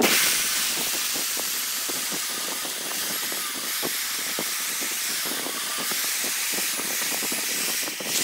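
Wood lathe work on a large spinning wood blank: a steady, loud hiss of the tool biting into the wood, with scattered irregular knocks, starting abruptly and stopping near the end.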